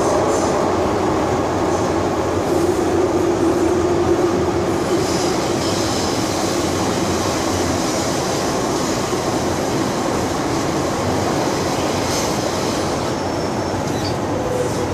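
MTR M-Train electric multiple unit running between stations, heard from inside the passenger car: a steady rumble of wheels and running gear, with a hum that stands out for a few seconds in the first half.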